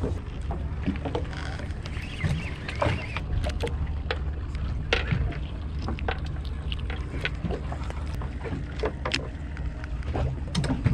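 Steady low rumble aboard a small fishing boat, with scattered sharp knocks and clicks.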